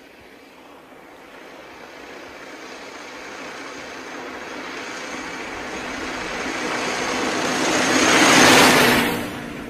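Veteran car approaching along a road and passing close by, its sound growing steadily louder to a peak about eight and a half seconds in, then quickly falling away.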